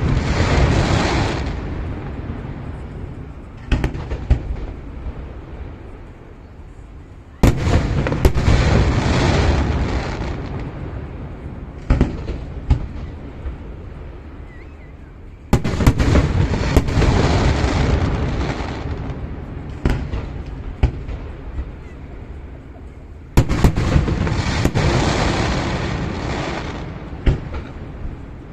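Fireworks bursting overhead: a big boom about every eight seconds, each followed by a long fading tail of noise, with single sharper bangs between the big bursts.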